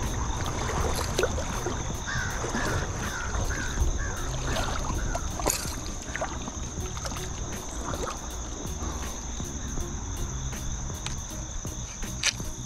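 Insects droning steadily in a high, thin tone, over a low rumble. From about two seconds in, a bird calls in a quick series of about eight short, harsh notes.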